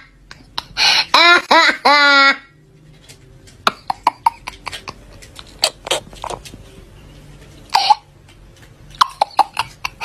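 A young boy laughing hard in loud, high-pitched bursts for about the first two seconds, then a quieter stretch of short clicks and brief vocal sounds, with one more short burst near the end.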